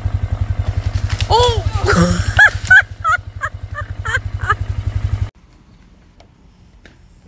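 A person cries out and then laughs in a run of short rising bursts over a steady low throbbing hum. The hum stops abruptly a little past five seconds in, leaving only faint sound.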